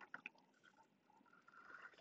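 Near silence with faint mouth sounds of someone eating: a few soft clicks just after the start and quiet chewing near the end.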